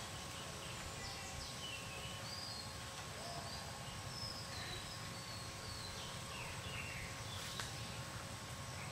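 Outdoor ambience: a steady low rumble with faint, short high bird chirps scattered through it, and a single faint click about seven and a half seconds in.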